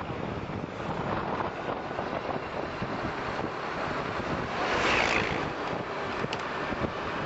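Wind rushing over the microphone and the rumble of a moving road vehicle, recorded from its open window, with a louder hissing swell about five seconds in.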